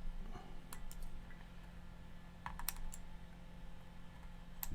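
A few light, sharp clicks in small clusters from a Hakko desoldering tool pulling cut transistor legs out of an amplifier circuit board, over a steady low hum.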